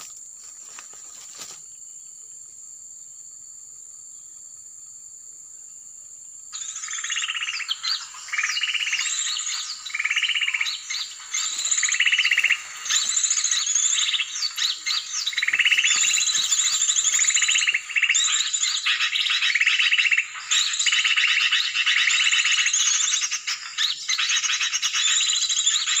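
Bird-call lure played loud through a small speaker to draw birds to birdlime sticks. It starts abruptly about six and a half seconds in and goes on as dense, chattering, repeated phrases with short breaks. Before it, a steady high insect whine.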